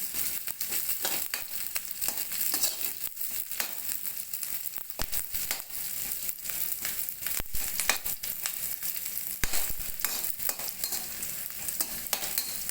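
Onions and green chillies frying in hot oil in a kadhai: a steady sizzle with frequent crackles and the scrape and tap of stirring.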